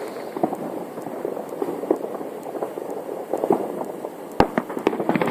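Fireworks crackling in a dense stream of small pops, with several sharp bangs near the end, the loudest about four seconds in.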